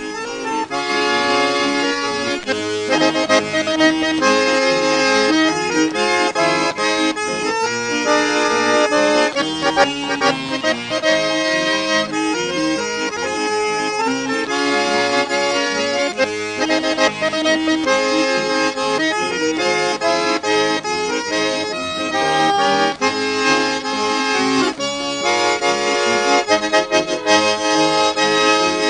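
Instrumental music: a melody over held chords, with no singing.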